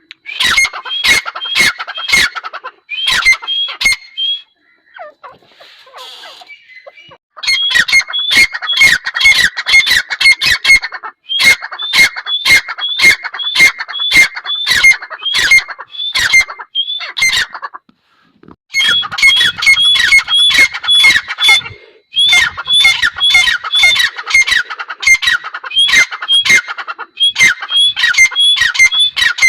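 Grey francolin (teetar) calling loudly in fast, repeated harsh notes, about three a second, in long bouts with short breaks.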